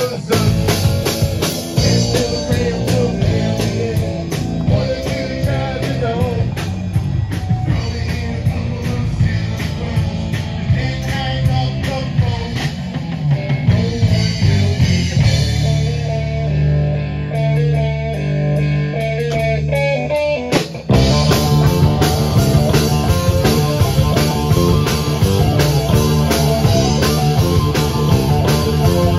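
Live rock jam band playing an instrumental passage on electric guitar, bass guitar and drum kit. Past the middle the drums drop away for several seconds under a held bass note, then the full band comes back in sharply.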